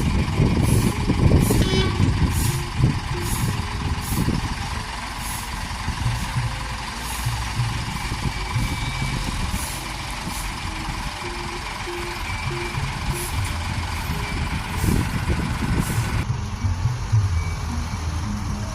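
Heavy diesel engine of a tracked excavator working under load, its rumble rising and falling, with a regular high-pitched warning pulse about once a second.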